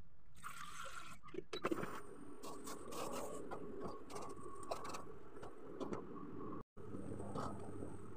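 Knocks and scrapes around a stainless steel pot as galangal, lemongrass and frogs are put into the water, over a faint steady hum.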